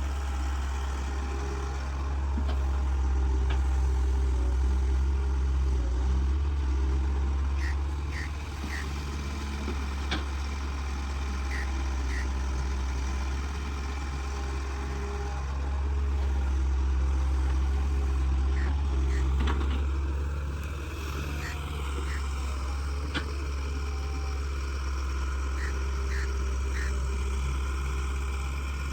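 Caterpillar hydraulic excavator's diesel engine running under working load, swelling louder twice for several seconds as it digs and swings, then easing back. Short high chirps come through at intervals.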